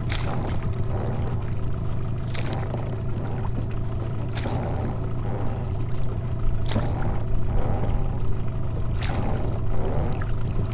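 Oars rowing an inflatable boat: a stroke of the blades through the water about every two seconds, five in all, over a steady low rumble of wind on the microphone.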